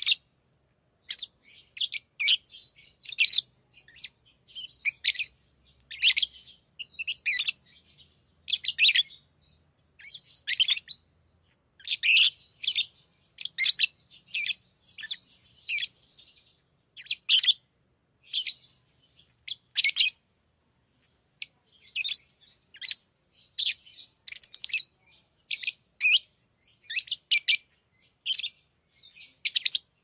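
Pet lovebirds chirping: short, shrill, high-pitched calls in quick runs, about one or two a second, broken by brief pauses.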